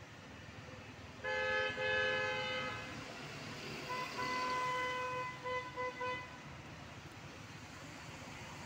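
Vehicle horns on the street: a honk lasting about a second and a half, starting about a second in, then a second horn at a different pitch sounding one long note and three short toots around four to six seconds in, over a steady traffic hiss.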